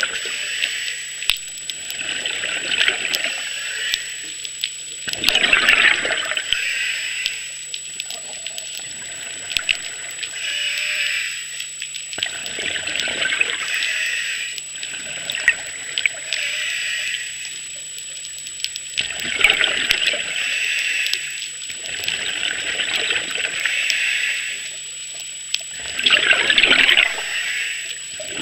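Diver's exhaled bubbles rushing out underwater in bursts every two to four seconds, over a steady faint high whine.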